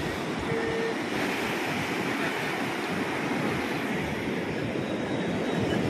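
Ocean surf breaking on a sandy beach: a steady rush of waves.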